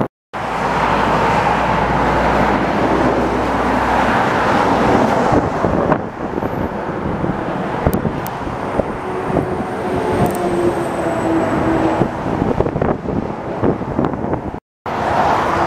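Jet airliner passing overhead on its landing approach: a steady rush of engine noise with a faint whine that drifts slightly down in pitch partway through.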